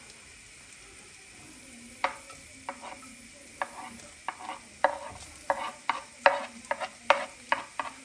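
A metal spoon stirring garlic and ginger frying in oil in a nonstick frying pan. Over a faint sizzle, a string of short scrapes and clicks of the spoon against the pan starts about two seconds in and comes faster toward the end.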